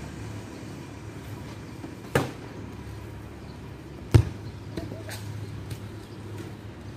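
A foot striking a football on grass: two thuds about two seconds apart, the second the louder, with a few lighter taps after it.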